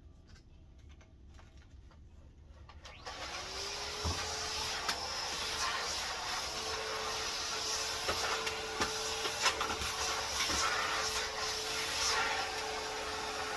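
Vacuum cleaner switched on about three seconds in, its motor whine rising quickly to a steady pitch, then running with a steady hiss of airflow. Occasional short clicks and knocks are heard over it.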